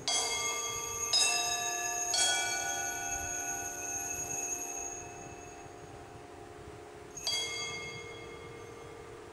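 Consecration bell at the elevation of the host: a bell struck three times about a second apart, then once more about five seconds later, each strike ringing on and fading slowly.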